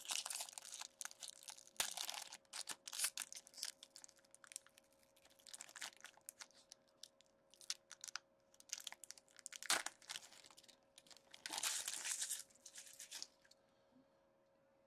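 Foil wrapper of a 2019-20 Upper Deck SP Game-Used hockey card pack being torn open and crinkled, in uneven bursts of crackling and tearing. The crackling stops about a second and a half before the end.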